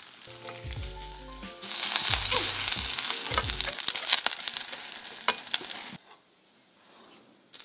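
Tiny pancakes frying in hot oil in a nonstick frying pan, some of them already burnt: a loud sizzle with many crackling pops, while a plastic spatula scrapes them up in the pan. The sizzle grows loud about two seconds in and cuts off suddenly about six seconds in.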